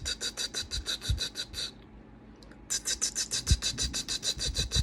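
Rapid tongued puffs of breath, a quick 't-t-t-t' at about eight a second, with the tongue cutting the airflow at the back of the teeth as in shofar articulation practice. Two runs, with a pause of about a second between them.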